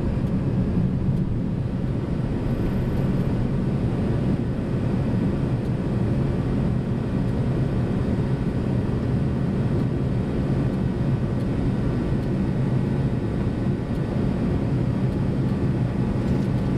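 Boeing 737-200's Pratt & Whitney JT8D turbofan engines running steadily at climb power, heard from inside the cockpit during the climb-out just after takeoff.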